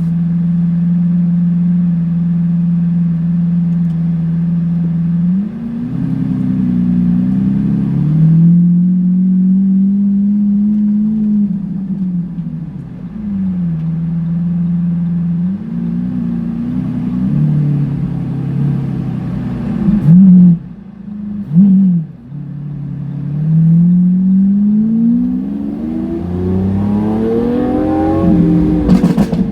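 Lamborghini Aventador S's V12 running through a Power Craft exhaust: idling steadily, then revving up and falling back several times, with two short sharp blips about twenty seconds in and a long climb in revs near the end, ending in a sharp crack.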